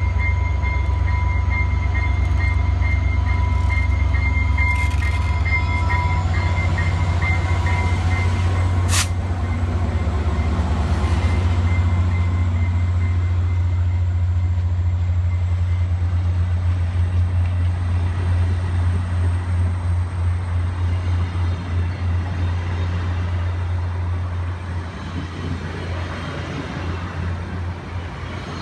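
VIA Rail EMD F40PH-2 diesel locomotive passing close with a deep, steady engine rumble, then its passenger cars rolling by, the wheels beating rhythmically on the rails as the sound slowly fades. A single sharp click about 9 seconds in.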